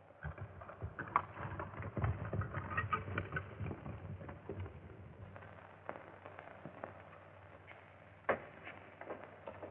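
Irregular hoofbeats of several horses riding off, loudest early on and growing fainter, with one sharp knock near the end.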